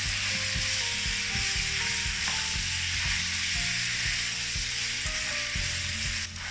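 Pork ribs sizzling in a pan on high heat as they are stirred, with the sauce boiling down to a thick glaze. The sizzle drops away shortly before the end.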